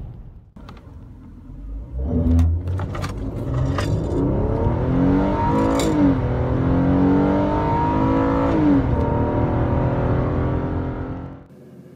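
Ford Taurus Police Interceptor's 3.7-litre V6 under hard acceleration, heard from inside the cabin. It starts about two seconds in, rises in pitch, drops at an upshift about six seconds in, climbs again and shifts once more near nine seconds, then fades out near the end.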